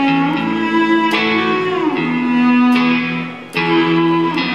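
Electric guitar playing slow, ringing chords, with a fresh chord struck about three times and one note sliding down in pitch about halfway through.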